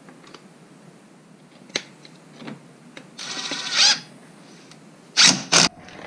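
DeWalt cordless driver running briefly about three seconds in, tightening a brake caliper mounting bolt, with a few light clicks of the socket and bolt before it. Two loud clatters near the end.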